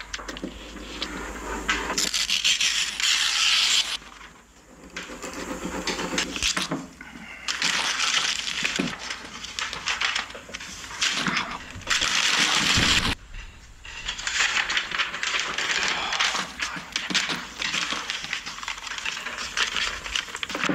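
Sheets of paper being handled, rustled and crinkled close to the microphone, in stretches of a few seconds with a couple of brief pauses.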